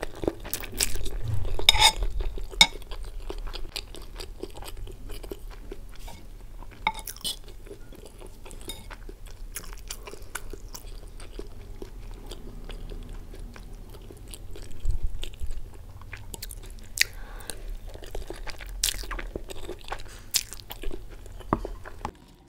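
Close-miked chewing of a mouthful of fried Maggi instant noodles and egg, with many wet clicks and smacks. It is loudest in the first couple of seconds and again briefly about two-thirds of the way through.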